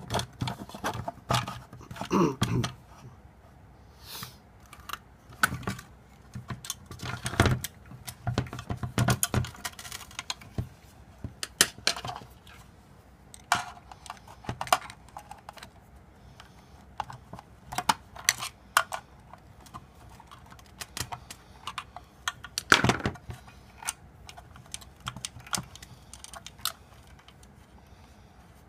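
Irregular clicks, taps and light rattles of small metal parts being handled as a drive chain is worked onto a motor's sprocket by hand, with the sharpest knock about three quarters of the way through.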